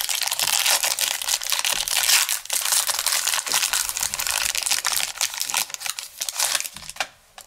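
A 2019 Panini Playoff football card pack's wrapper being torn open and crinkled by hand, a dense crackling that stops about seven seconds in.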